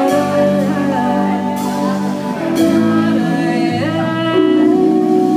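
Live band playing a soul song: a woman singing with sliding notes over keyboard, electric bass, electric guitar and drum kit, with two cymbal hits about a second apart.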